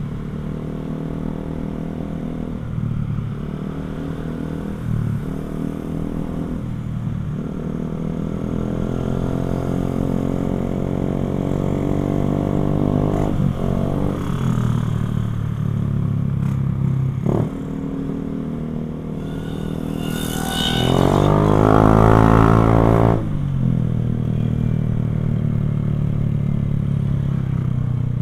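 Motorcycle fitted with an aftermarket NOB1 exhaust, ridden and pulling through the gears: the exhaust note climbs in pitch and drops back at each shift. About 20 seconds in it rises into a louder, higher rev for a few seconds.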